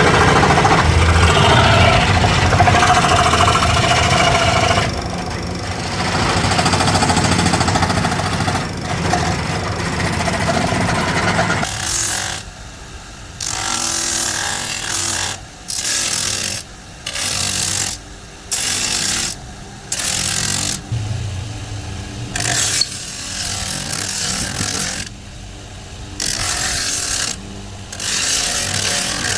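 Woodworking power tool working wood. It runs steadily for about twelve seconds, then comes in repeated bursts of about a second each, starting and stopping again and again.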